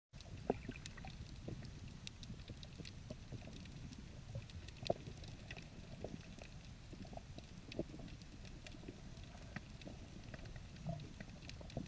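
Faint underwater ambience recorded by a submerged action camera: a steady, muffled low rumble with scattered faint clicks and ticks, a couple of them a little louder about half a second and five seconds in.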